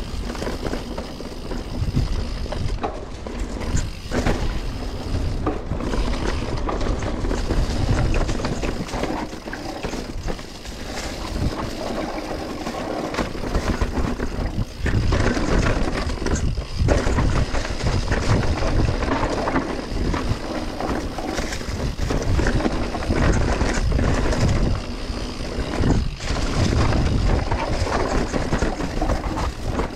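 Mountain bike ridden down a dirt bike-park trail: wind rumbling on the microphone, tyres on the dirt, and the bike rattling and knocking over bumps.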